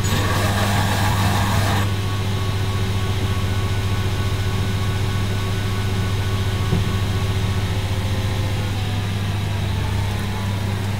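Electric motor of a workshop machine running with a steady, loud mains hum, with a burst of hiss over it for about the first two seconds.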